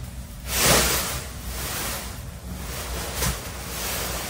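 Bean bag chair rustling and shifting as a person drops into it about half a second in, then rustling more softly as she settles in.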